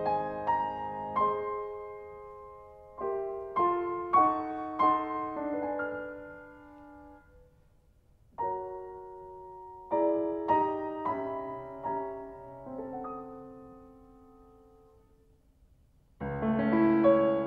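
Solo piano background music: slow phrases of struck notes and chords that ring and fade away. The music nearly stops twice, about halfway and shortly before the end. A fuller chord comes in near the end.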